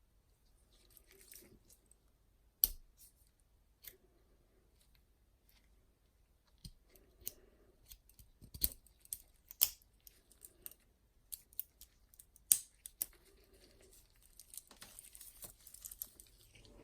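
Handling of a watch and its packaging: a series of sharp, irregular clicks and taps mixed with short bursts of soft rustling.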